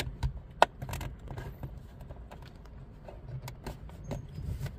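Plastic clicks and handling noise as the hidden dash-camera cover is pressed and snapped into place over the rearview mirror mount, with one sharp click about half a second in the loudest.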